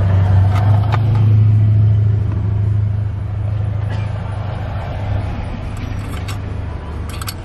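Low, steady vehicle engine rumble, loudest for the first two seconds and then easing off. Light clicks of plastic and metal from the console lid and its coil spring being handled come about a second in and again several times near the end.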